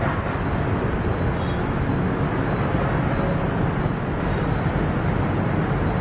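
Steady low rumble of city background noise, with no separate events standing out.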